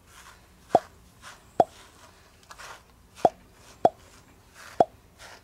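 Soft brushing strokes through a white Pomeranian's shedding coat, with five short, sharp pops over them that each drop quickly in pitch; the pops are the loudest sounds.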